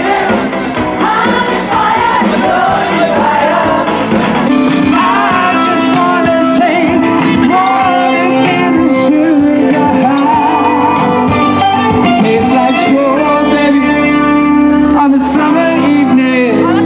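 Music with a singing voice, loud and steady; the sound changes abruptly about four and a half seconds in, as if one song gives way to another.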